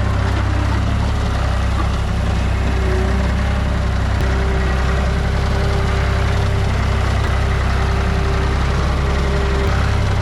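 Skid steer engine running steadily, a loud, even low rumble with no change in speed.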